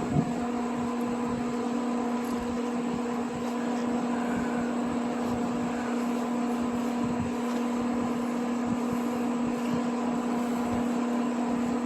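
Steady electric motor hum with an even pitch, and one short knock just after the start.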